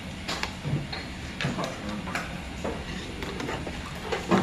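Eating at the table: a metal spoon clicking and tapping irregularly against an earthenware soup bowl, about ten short clicks in four seconds, over a steady low room background.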